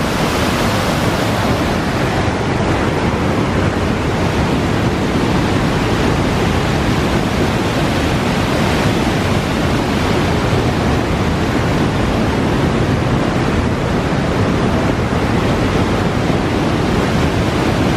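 Mountain stream cascading through a narrow rock gorge: a steady, loud rush of white water.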